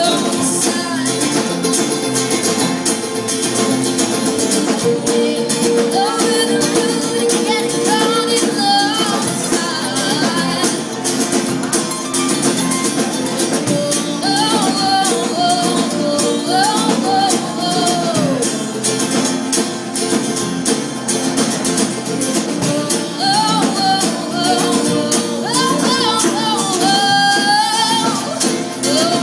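Live acoustic band playing a song: a woman singing over strummed acoustic guitars, mandolin and light drums.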